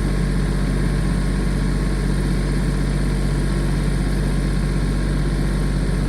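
Tractor engine running steadily while a log is loaded.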